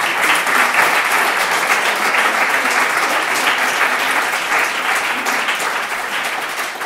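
Audience applauding after the lecture, a dense steady clapping that slowly tapers off toward the end.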